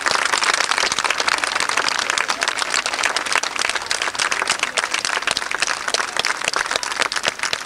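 Crowd of spectators applauding, a dense, steady clapping.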